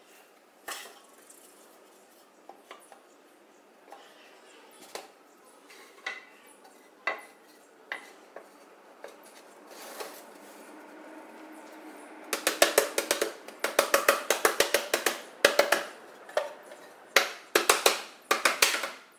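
Wooden hive-box boards knocking now and then as the finger-jointed pine panels are fitted together by hand. Then runs of rapid mallet blows, several a second, drive the box joints home.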